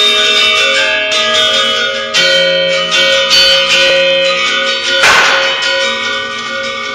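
Balinese gender wayang ensemble playing: bronze metallophones ring out in interlocking held notes, with sharper struck accents about two and five seconds in.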